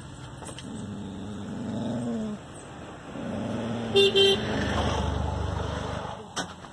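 A dog's low growl in the first two seconds, then two short vehicle-horn toots about four seconds in, over the low rumble of a passing vehicle.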